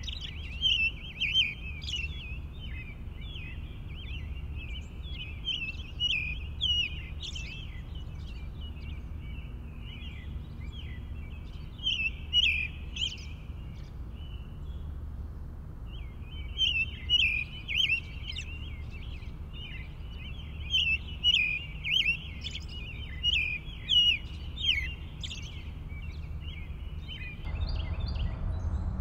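Many small birds chirping in a busy, overlapping chorus of short, quick calls, with a brief lull about halfway through. A steady low rumble runs underneath and grows louder near the end.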